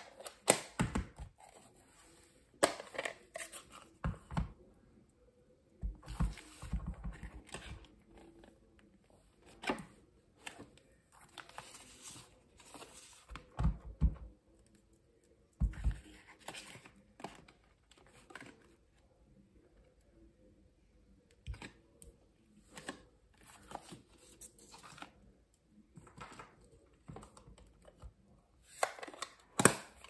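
Irregular taps, clicks and soft thumps of hand stamping: a clear acrylic stamp block dabbed on an ink pad and pressed down onto cardstock, with paper sliding and rustling and the plastic ink pad case handled.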